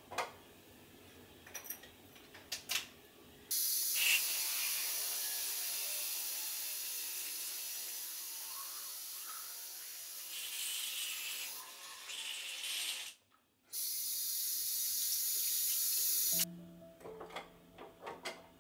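Water running from a bathroom mixer tap into a washbasin: it comes on suddenly about three and a half seconds in, cuts out briefly around thirteen seconds, and stops about sixteen seconds in. A few light clicks and knocks come before and after.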